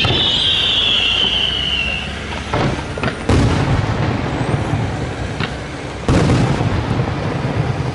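Aerial fireworks: falling whistles fade out in the first two seconds, then shells burst with loud booms, the strongest about three seconds in and again about six seconds in, each followed by a rumbling tail.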